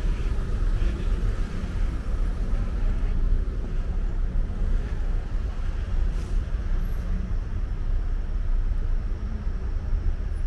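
Steady road traffic noise from cars passing on a busy city street, a continuous low rumble without breaks.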